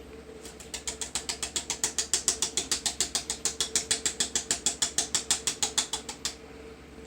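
Hand-cranked can opener being turned around a can of condensed soup: a fast, even run of ratcheting clicks, about seven or eight a second, that starts about half a second in and stops near the end as the lid is cut through.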